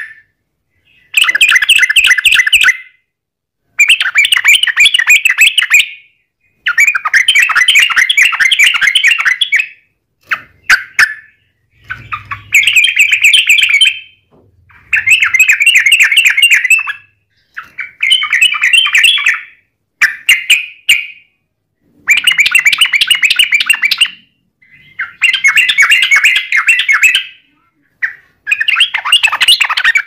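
Yellow-vented bulbul (trucukan) in full song, giving long, rapid chattering phrases. There are about ten phrases, each one to three seconds long, with short pauses between them.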